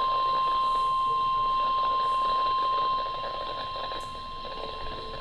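NOAA Weather Radio warning alarm: a single steady 1050 Hz tone, sounded as part of a required weekly test of the weather radio's warning device. The level drops about three seconds in, but the tone carries on.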